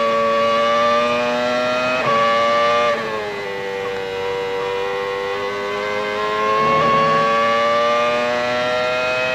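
Hart 3.0-litre V10 of a 1999 Arrows Formula 1 car heard onboard at high revs, a high, steady whine. About three seconds in the note drops and quietens as the car comes off the throttle through a corner, then climbs steadily as it accelerates out onto the straight, with a sharp gear change near the end.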